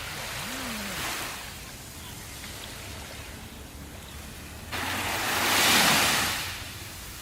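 Ocean surf: waves washing onto the shore, with one louder wave surging in about five seconds in and drawing back.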